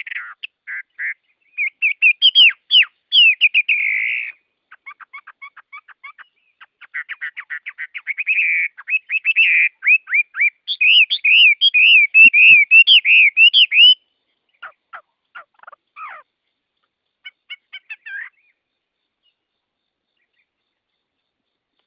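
Songbirds singing in quick chirps and rapid trilled phrases, busiest and loudest in the first two-thirds, thinning to a few scattered notes and stopping about 18 seconds in.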